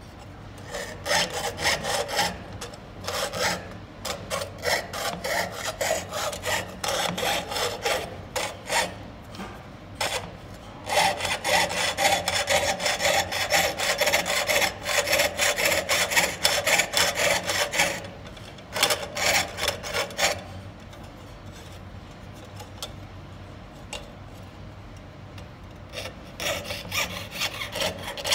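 Jeweler's saw blade cutting through copper sheet on a wooden bench pin, in quick back-and-forth strokes. The sawing breaks off briefly about a third of the way in, runs on until about two-thirds through, goes quiet for several seconds, then starts again near the end.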